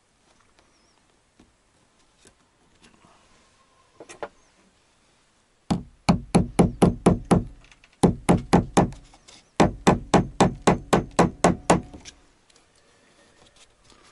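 Small hammer driving decorative upholstery nails through banner fabric into a wooden door. A few light taps come first, then about two dozen quick, sharp blows in three runs, around five a second.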